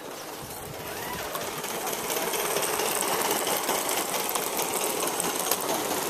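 Gauge 1 live-steam model of a BR Standard Class 9F locomotive running under steam, its exhaust beating in a fast, rapid rhythm. It grows louder over the first two seconds as the engine passes close by.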